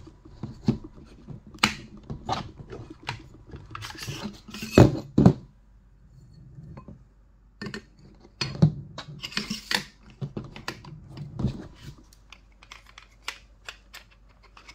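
Metal rifle parts being handled on a table: an irregular run of clicks, scrapes and knocks as the muzzle device comes off and the barrel is slid out of the rifle. The loudest knocks come about five seconds in.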